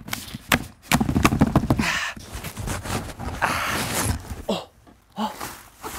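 A large cardboard box being opened: a run of sharp cardboard knocks and scraping as the lid comes off, then the rustle of the plastic air-cushion packing inside.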